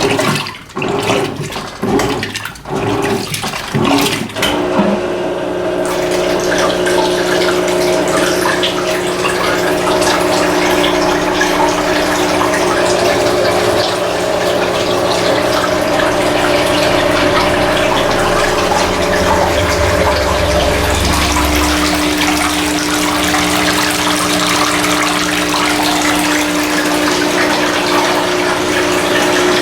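Electrolux LF90 washing machine with water in the drum: irregular sloshing surges, then about four to five seconds in a steady motor hum sets in over rushing water.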